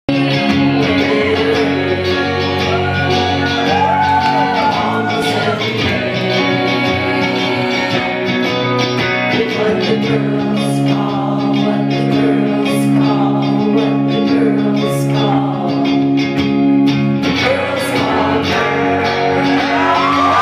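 Live rock performance: a woman singing over strummed electric guitar, her voice coming in with phrases between guitar passages.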